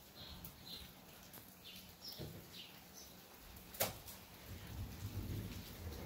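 Birds chirping in short, high calls, then a single sharp click a little before four seconds in, and low rumbling thunder building toward the end.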